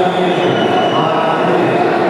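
Steady hubbub of a crowd in a large hall: many overlapping voices blending into a continuous murmur.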